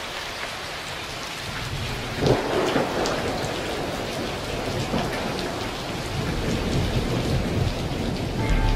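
Thunderstorm: steady rain with rumbling thunder, the loudest clap a little over two seconds in.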